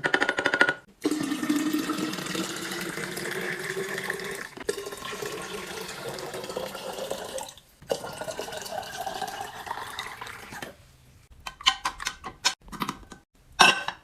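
Liquid pouring into a container in three long pours, each rising in pitch as the container fills. A few short clicks or knocks follow near the end.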